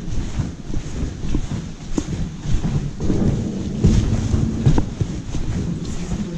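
Wind rumbling and buffeting on the microphone, with scattered short knocks.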